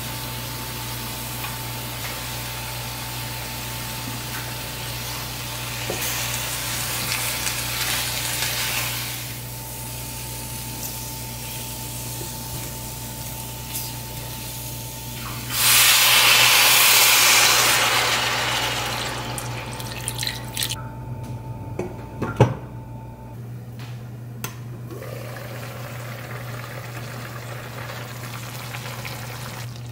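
Chicken drumsticks sizzling and frying in a stainless steel pan as they are stirred. About halfway through, liquid is poured into the hot pan with a loud rush of sizzling that fades over a few seconds, leaving a quieter simmer with a sharp clink.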